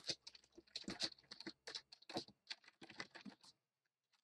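Computer keyboard typing: a quick, irregular run of faint keystrokes that stops about three and a half seconds in.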